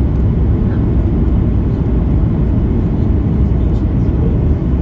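Steady cabin noise of a Boeing 737 MAX 8 in flight on its landing approach: airflow and its CFM LEAP-1B jet engines running, a loud even rumble heard from a window seat.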